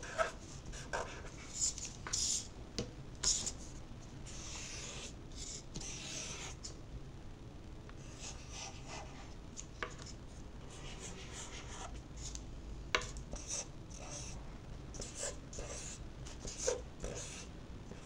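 Black Crayola washable marker drawing on paper: short, irregular scratchy strokes, with a few sharp clicks in between, the loudest about two-thirds of the way through.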